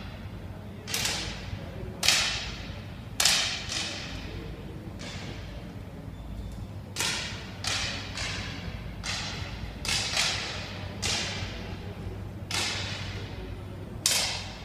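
Air pistols firing on a 10 m range: about a dozen sharp pops at irregular intervals from shooters on neighbouring lanes, some only half a second apart. Each shot is followed by a short echo in the hall.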